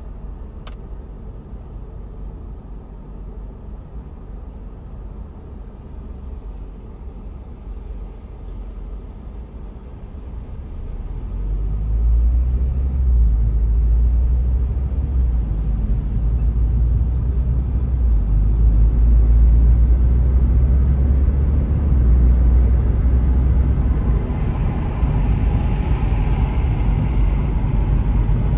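Car cabin noise: a quiet low hum while the car sits stopped at a traffic light, then, about eleven seconds in, a much louder low rumble of engine and tyres as the car pulls away and drives on.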